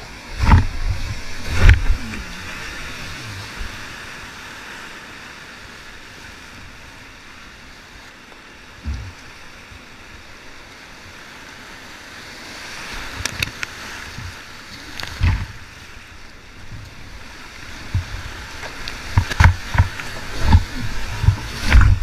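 Whitewater rapids rushing around a kayak, with heavy thumps and splashes as the boat punches through waves and water slaps the hull. The thumps come twice in the first two seconds, once or twice in the middle, and in a quick cluster near the end as the boat plunges through a big wave.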